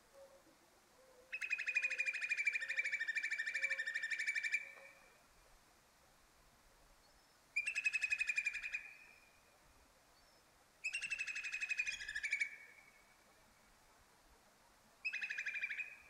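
A bird singing a rapid, buzzy trill four times: a long one of about three seconds, then three shorter ones, each trailing off briefly at the end.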